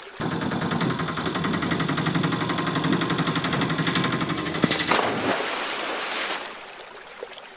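A rapid rattling small-engine sound. About five seconds in it gives way to a splash as a plastic toy auto rickshaw hits the river water, with a hiss that stops about a second later.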